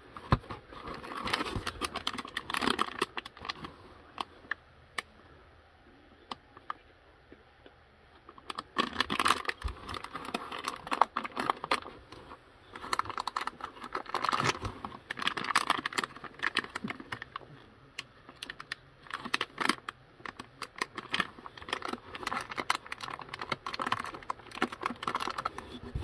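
Hands rummaging through laser engraver kit parts in a foam-lined cardboard box: plastic parts bags crinkling, with light clicks and knocks of the parts, in irregular bursts and a lull of a few seconds after the first ones.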